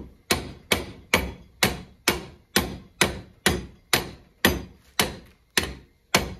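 Hammer striking a cast-iron Columbian bench vise in steady blows, about two a second, each a sharp metallic knock that rings briefly. The blows are driving apart the vise's seized front jaw section.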